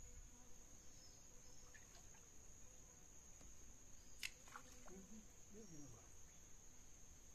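Faint, steady high-pitched insect trill, of the cricket kind, with one short click about four seconds in.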